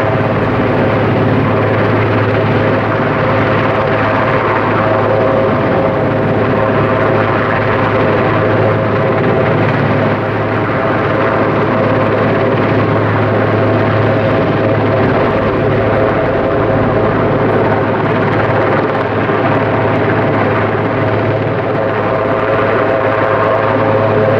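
Eurocopter Puma twin-turbine helicopter hovering with a slung load on a long line. Its rotors and turbines run steadily: a constant low hum with a steady whine above it, unchanging in level.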